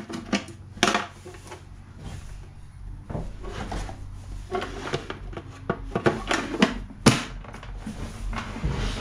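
Tools and small metal parts being handled: scattered clicks, clinks and knocks, with one sharp knock about seven seconds in.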